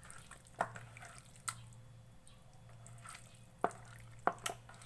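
A handful of sharp, separate drips and taps, about five in all, as liquid and seasonings drop into a bowl of chicken being marinated. A steady low hum runs underneath.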